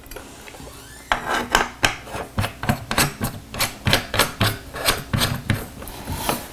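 Rapid run of short rasping scrapes, about five a second, starting about a second in, from hardware being worked while the yoke mount is fitted onto an LED soft panel light.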